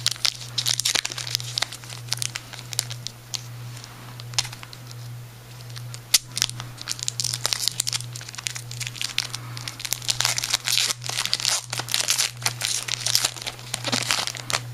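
Foil trading-card pack wrapper being torn open and crinkled, with irregular rustles and crackles as the cards are pulled out.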